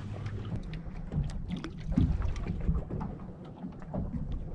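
Wind on the microphone and water lapping against a fishing boat's hull, with scattered small clicks from handling the rod and tackle.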